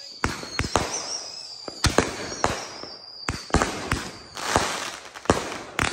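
Consumer fireworks going off overhead: about a dozen sharp bangs in irregular succession, with crackling between them.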